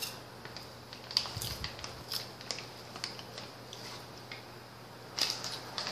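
Chewing on white cheddar popcorn, with scattered small crunches and crackles. A short run of crinkling from the snack pouch comes near the end, as a hand reaches back in.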